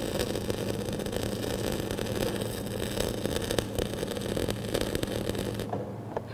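Flux-cored wire arc welding: the arc's steady crackle with a low hum under it, cutting off near the end as the weld stops.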